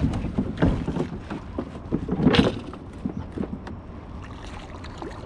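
A hooked bass splashing and thrashing in the water as it is reeled up beside the boat, with uneven sloshing and a loud splash about two seconds in.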